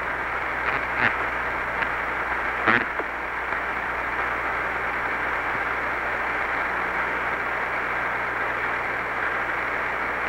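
Steady static hiss on the Apollo 11 air-to-ground radio link between transmissions, narrow and muffled like a radio channel, with a faint low hum underneath. A few short clicks and blips come through in the first three seconds.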